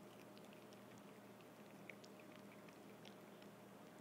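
Chihuahua puppy chewing a grasshopper: faint, scattered little crunching clicks over a low steady hum.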